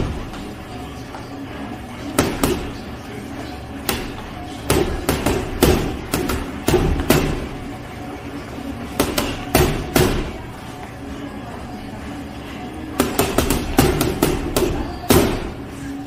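Boxing gloves punching a hanging teardrop heavy bag, the blows landing in quick combinations of two to five with pauses of a second or two between them.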